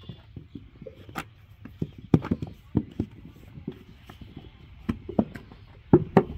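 Irregular thuds and knocks, one or two a second, from manual clay-brick making, with the loudest near the end.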